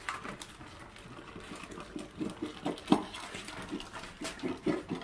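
Dogs eating from metal bowls: irregular clinks, knocks and scrapes of the bowls as they lick and chew, with one sharper clink about three seconds in.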